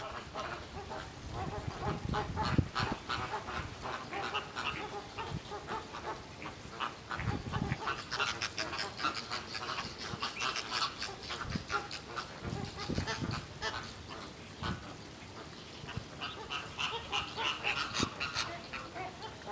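Flamingo flock calling: many overlapping short, goose-like honks, busiest in the second half. A few low thuds come in among them.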